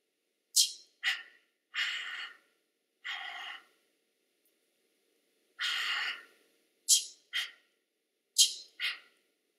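Unvoiced vocal sounds made by performers: three pairs of sharp consonant-like clicks and hisses, each a high 'ts' followed quickly by a lower one, with three longer breathy, whispered exhalations between them, the first two about two and three seconds in and the third about six seconds in.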